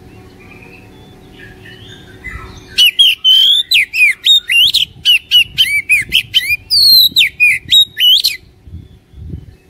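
Oriental magpie-robin (kacer) singing: soft scattered notes at first, then about three seconds in a loud, rapid run of sharp whistled notes, about four or five a second, many sliding up or down in pitch, which stops abruptly near the end. This is full, lively song of the kind played as a lure to set other magpie-robins singing.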